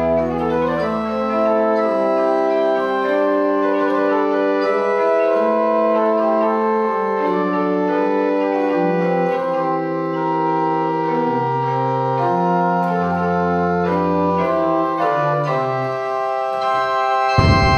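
Background music played on an organ: held chords and a slow melody over a bass line that steps from note to note. A short burst of noise cuts in right at the end.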